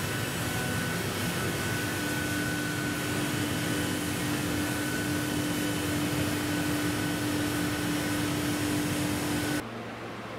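Woodworking shop machinery running with a steady rushing noise and a steady hum. Near the end it cuts off abruptly to a quieter, lower hum.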